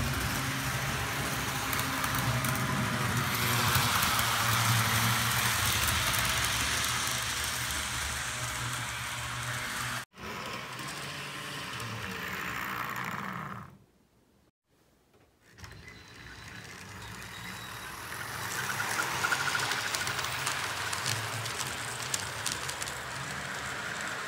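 HO scale model train running around the layout: a steady low motor hum with wheel and track noise. It drops out for a moment about halfway through and comes back.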